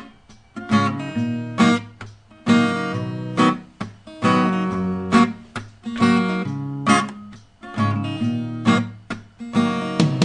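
Music: an acoustic guitar strumming chords, about one a second, each sharp strum ringing out and fading before the next.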